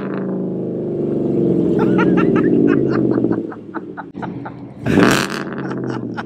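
Whipple-supercharged 5.0 Coyote V8 of a 2021 Ford F-150, a newly installed replacement engine, idling with a loud exhaust note and revved sharply once about five seconds in.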